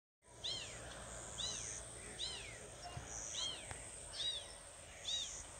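A kitten crying over and over, about six high, rising-and-falling meows roughly a second apart.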